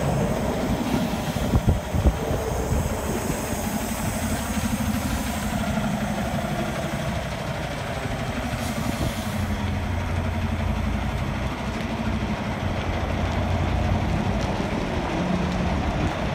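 Semi-truck's diesel engine running at low speed while the tractor-trailer backs up, a steady low rumble, with a couple of sharp knocks about two seconds in.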